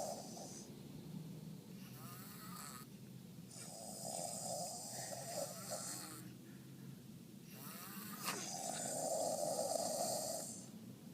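A father and daughter snoring: long, loud snores about every four to five seconds, with quieter breaths in between.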